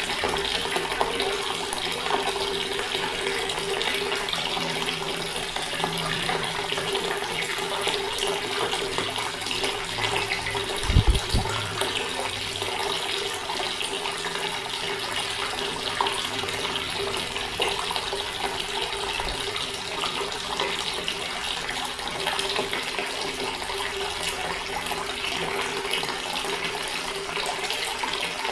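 Water tap running steadily, the stream splashing continuously. A brief low thump sounds once, about a third of the way in.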